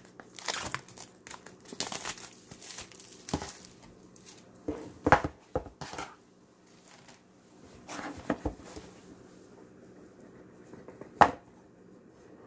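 Clear plastic shrink-wrap being peeled and crumpled off a cardboard phone box, crinkling for the first few seconds. Then come a few sharp knocks and taps as the box is handled, the sharpest near the end.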